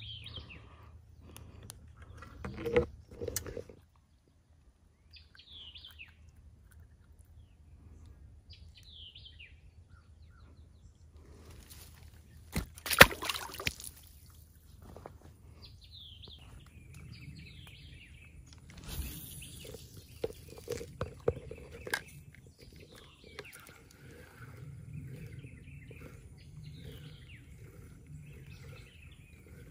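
Birds calling in short, repeated chirps at the pond's edge, with scattered rustling and handling noises; the loudest is a short, sharp noise about thirteen seconds in.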